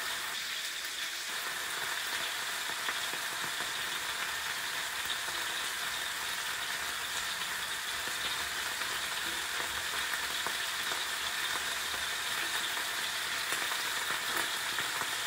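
Scallops searing in hot olive oil in a frying pan, with a steady sizzle and a few scattered pops. The first side is caramelizing and has not yet been turned.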